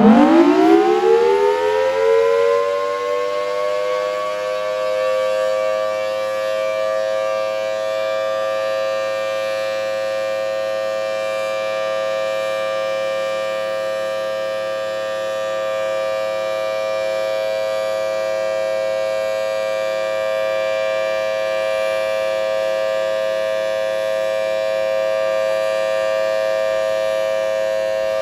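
Single-phase Federal Signal Thunderbolt 1000T outdoor warning siren winding up, its pitch rising over the first few seconds, then holding a loud, steady, two-note wail. There is no rise and fall in volume because the siren head has failed to rotate and stays pointed one way.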